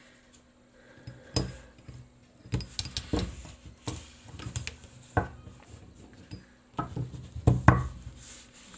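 Metal parts of a helping-hand (third hand) soldering stand clinking and knocking against each other and the tabletop as the clip arm is fitted to its base: about a dozen separate sharp clicks and taps, loudest near the end.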